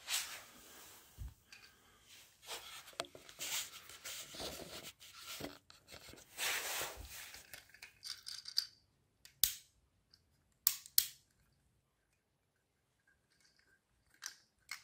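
A 3D-printed plastic wind-up car being wound by hand: its plastic gears and spring motor rasp and click steadily for about eight seconds. This is followed by a few separate sharp clicks as the car is handled.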